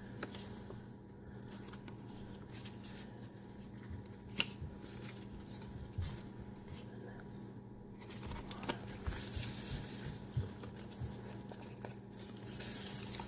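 Pages of a thick handmade paper junk journal being turned and handled: soft paper rustling with scattered light taps, busier in the second half, over a faint steady hum.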